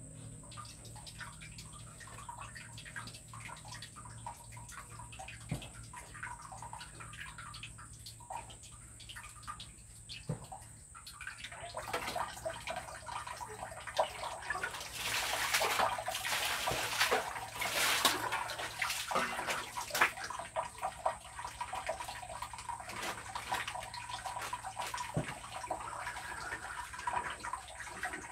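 Water being poured and splashed during a bath, with faint knocks and drips at first and growing louder and fuller about halfway through.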